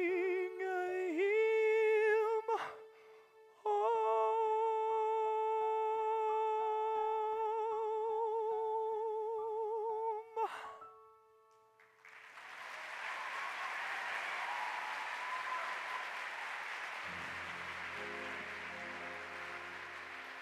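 A man's voice singing the final long held notes of a musical-theatre ballad with wide vibrato over a soft orchestra. The second note lasts about six seconds and stops about ten seconds in. After a short pause the audience applauds, and the orchestra comes back in with low sustained chords under the applause near the end.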